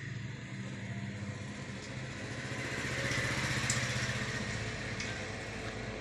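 A steady low motor hum, with a hiss that swells about three seconds in and then eases.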